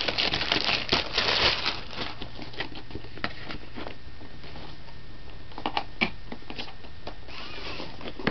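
Clear plastic packaging crinkling as it is pulled off a cardboard tablet box, followed by scattered light clicks and taps as the box and its contents are handled.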